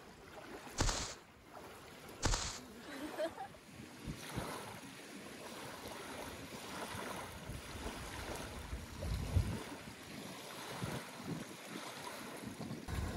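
Small waves lapping on a gravel lakeshore, a steady rushing wash with wind buffeting the microphone at times. Two brief rushing bursts come about one and two seconds in.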